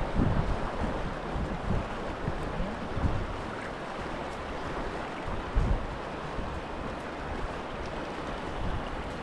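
Steady rush of a fast-flowing river, with wind gusting on the microphone in irregular low buffets.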